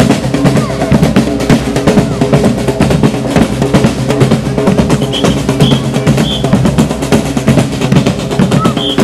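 A marching drum group beating large bass drums and other drums in a dense, steady rhythm.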